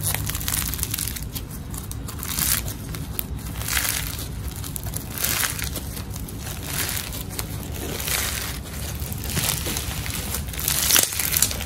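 Crunchy floam slime packed with tiny foam beads being squeezed and pressed between the hands, crunching with each squeeze, about nine squeezes roughly one every second and a half.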